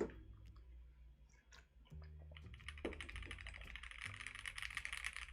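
Mechanical keyboard being typed on: a few scattered keystrokes, then fast continuous typing from about halfway through.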